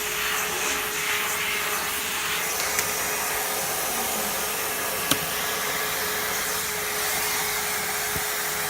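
Vacuum cleaner running steadily with a constant hum, with two brief clicks about three and five seconds in.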